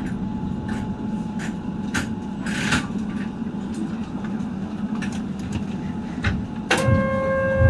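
Inside the driver's cab of a stopped Keihan 800 series train: a steady low hum with scattered clicks and knocks. Near the end a sharp knock is followed by a steady electronic chime of several tones.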